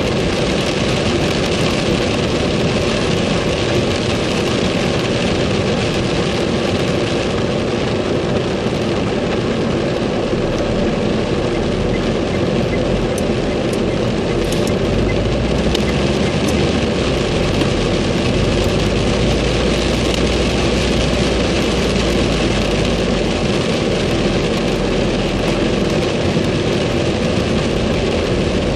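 Heavy rain falling on a car's roof and windshield, heard from inside the cabin over steady engine and wet-tyre road noise. A deeper low rumble grows stronger about halfway through.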